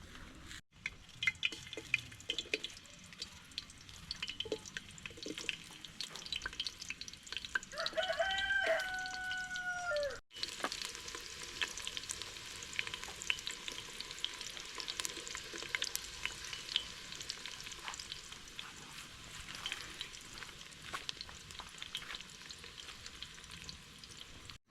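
Food sizzling and crackling in a pan as it fries. A rooster crows once, about eight seconds in.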